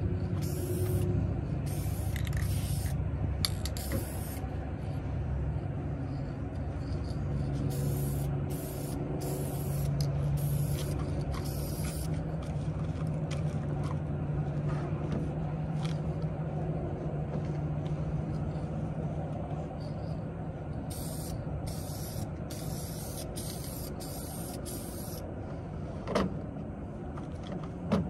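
Aerosol spray-paint can hissing as plastic trim pieces are sprayed black: a few short bursts at first, then two longer passes near the middle and toward the end. A steady low engine hum runs underneath, and two sharp knocks come near the end.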